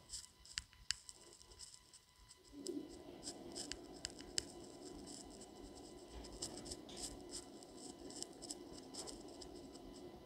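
Faint scraping and ticking of a spatula working eggplant pieces around an iron skillet. A steady low rushing noise comes in about two and a half seconds in.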